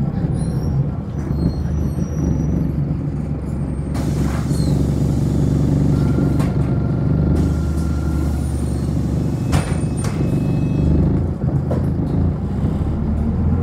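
City bus engine running low and steady, heard from inside the cabin as the bus slows and stands at a stop, with two short hisses of air about four seconds in and just before ten seconds.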